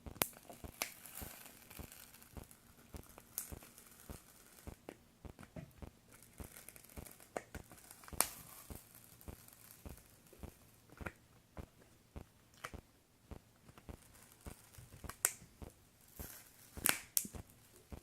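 Irregular small clicks and crackles, with a few louder sharp scrapes about halfway through and twice near the end: an adhesive-backed metal detector control panel screen being pried and peeled loose from its circuit board.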